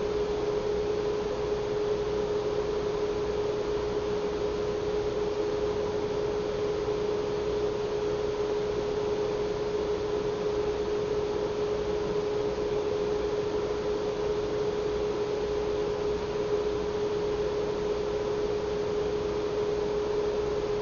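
Steady electrical hum: one unchanging tone with a fainter higher one above it, over a constant background hiss.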